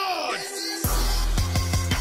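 A falling electronic sweep fades out. Just under a second in, loud electronic music starts, with heavy bass and a few quick drum hits: the cartoon's end-credits music.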